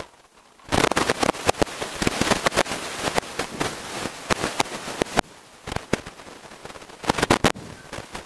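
Rapid crackling clicks and knocks from hands handling Ethernet cables and plastic router cases on a tabletop. The sound comes in two busy spells with a quieter stretch between them.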